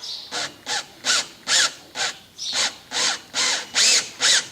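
Hand drill pulsed in short bursts, about two to three a second, the motor spinning up and down with each squeeze of the trigger as the bit starts a hole in the fiberglass access door. The bursts grow louder.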